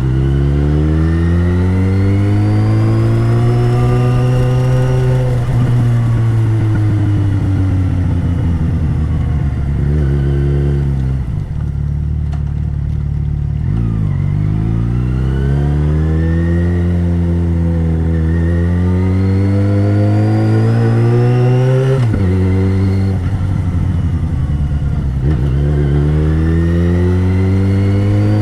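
Yamaha XJ6's 600cc inline-four engine under way, revs rising in each gear and dropping sharply at the gear changes, several times over.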